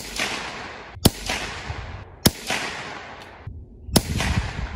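Four .22 rifle shots, sharp cracks a second or so apart, each trailing off in about a second of echo.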